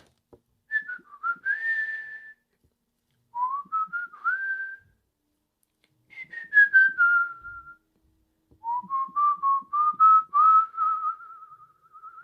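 A man whistling with his head resting inside a cardboard box: four short phrases of clear, gliding notes, most rising and one falling, the last phrase the longest and held near one pitch.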